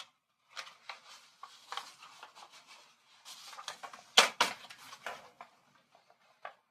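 Manual typewriter clicking and rattling as it is worked, then two sharp key strikes close together about four seconds in, typing the page number "ii".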